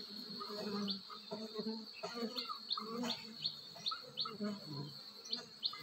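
Honeybees buzzing as they fly in and out of a tree-hollow nest entrance, the buzz swelling and fading as single bees pass close. A run of short, evenly repeated chirps, about three a second, comes in from about two seconds in over a thin steady high tone.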